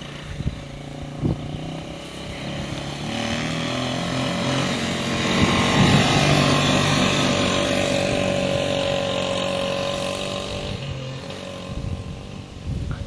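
ATV engine running and revving over rough dirt, its pitch stepping up and down with the throttle; it grows louder, passes closest about six seconds in, then fades as it moves away.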